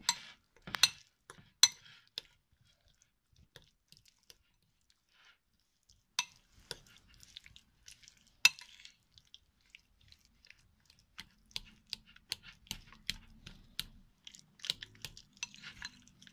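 A metal utensil stirring a wet, oily eggplant mash in a glass bowl, clinking and scraping against the glass. There are a few sharp clinks, then a lull, then a run of lighter taps several a second near the end.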